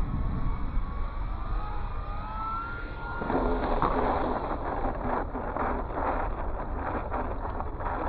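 Wind buffeting the microphone, with the faint whine of an electric ducted-fan RC jet gliding in pitch over the first few seconds. From about three seconds in, a rougher crackling noise joins the wind.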